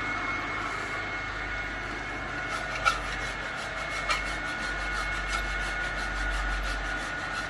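Large old Schaerer lathe running with a steady whine and low hum, with two sharp clicks about three and four seconds in.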